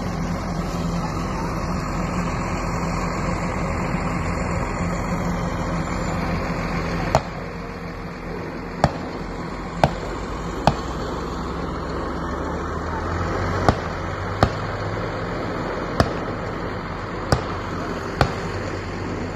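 Motor vehicle engine running steadily. About seven seconds in it drops away, and sharp cracks follow at irregular intervals, about nine in the next twelve seconds, over a lower rumble.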